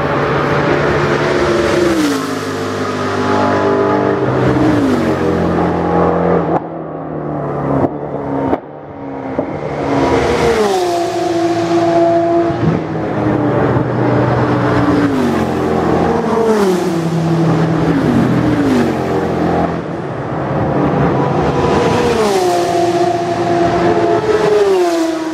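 Race cars passing one after another at speed. Each engine's note drops in pitch as it goes by, several times over, with a short lull about seven to nine seconds in.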